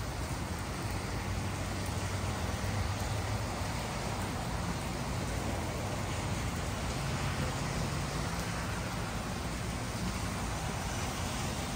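Steady rain falling on wet pavement, making an even hiss, with cars passing on the wet road and a low engine hum that swells and fades a couple of times.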